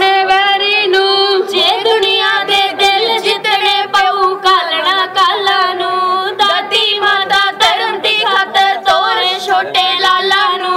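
Children and teenage girls singing a Punjabi Sikh devotional hymn together into microphones, over a steady drone.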